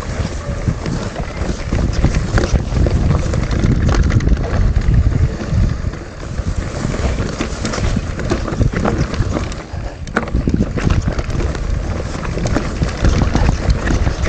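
Wind rushing over the microphone of an action camera on a moving mountain bike, with the rattle and crunch of the bike rolling over a rough track as a run of quick clicks and knocks.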